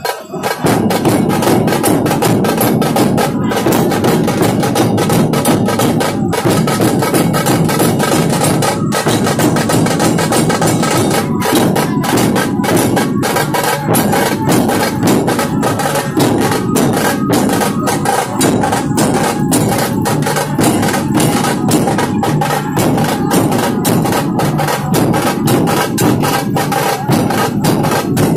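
Loud music driven by fast, dense drumming, with steady ringing metallic tones over the beats.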